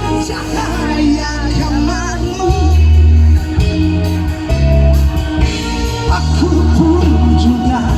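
Live band music: a loud pop-rock passage with a wavering melodic lead over sustained bass notes and drums.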